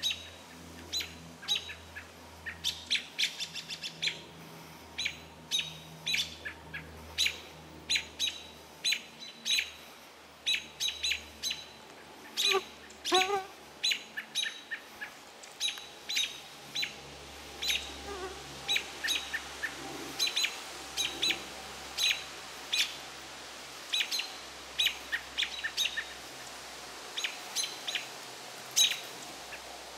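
American robins giving alarm calls at a perched owl: many short, sharp chirps, about two a second and irregular, with a lower call about 13 seconds in.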